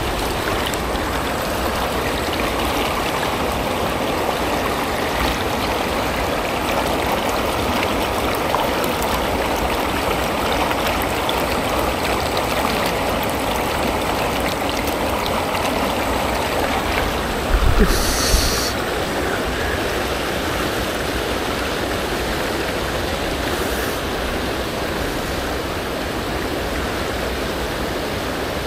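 A small, shallow river rushing steadily over stones. About two-thirds of the way through there is a brief louder rustle with a low thump.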